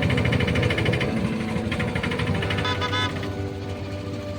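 Road traffic: vehicle engines running with a rapid pulsing rattle, and a short horn toot about three seconds in.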